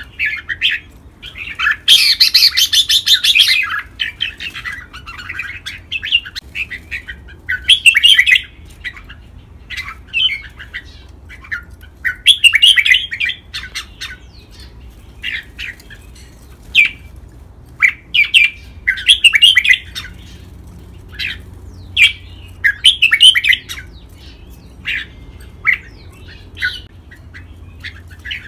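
Red-whiskered bulbul singing: short, bright, warbling song phrases come every few seconds, the longest and loudest about two seconds in, over a faint low hum.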